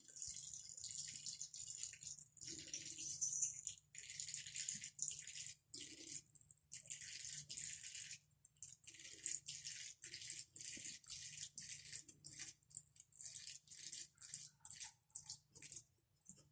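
Cat in a litter box, faint rustling hiss of litter. Near-continuous at first, then in irregular bursts about once a second.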